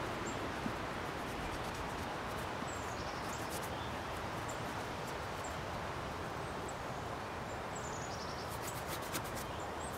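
Steady outdoor background noise with faint, high bird chirps now and then, and a quick run of light clicks near the end.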